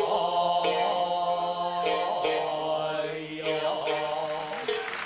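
Takemoto (gidayū) music for kabuki: a chanter's long, wavering held note over sharp plucked notes of a shamisen.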